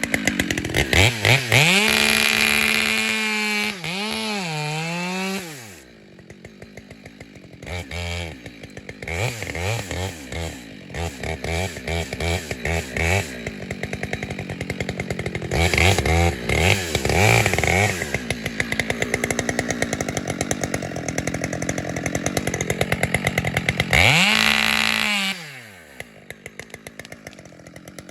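Chainsaw boring into and cutting through a standing tree's trunk during directional felling: the bore cut, then the release of the back strap. The saw runs at full throttle for about five seconds and drops to idle. It then revs in repeated short bursts, makes one more full-throttle cut near the end, and falls back to idle.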